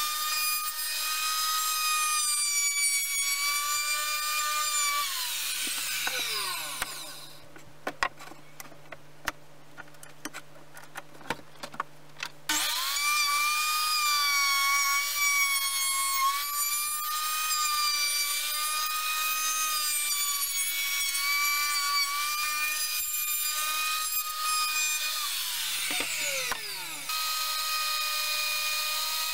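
Handheld electric router running at high speed with a whine that dips slightly as the bit cuts into a wooden bowl ring. It winds down about six seconds in, leaving a few light clicks and knocks, runs again from about twelve seconds in, and winds down once more near the end before running again.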